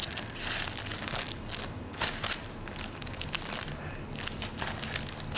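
Clear plastic packaging crinkling and crackling in irregular bursts as hands handle and flip through plastic-wrapped stationery.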